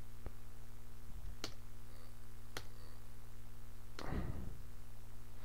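Steady low electrical hum on a desk microphone, with three faint sharp clicks in the first three seconds and a short soft rush of noise, like a breath, about four seconds in.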